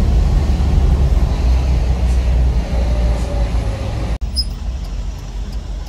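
Steady deep engine rumble and road noise inside the cab of a moving Mitsubishi Canter-based elf minibus. The sound cuts out for an instant about four seconds in, then goes on a little quieter.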